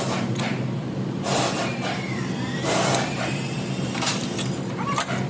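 A car running with a steady low hum, and broad whooshing noise swelling and fading about every second and a half.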